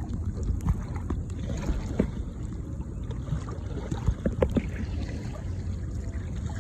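Kayak being paddled: water splashing and dripping from the paddle in a few irregular strokes, over a steady low rumble.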